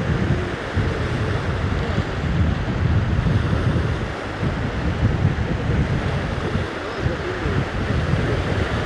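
Wind buffeting the microphone in gusts, over the wash of small waves breaking on the shore.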